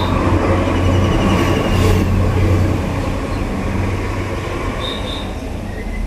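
Loud, steady low rumble of a passing heavy vehicle, rising suddenly at the start, strongest about two seconds in, then slowly easing off. A short high tone about five seconds in.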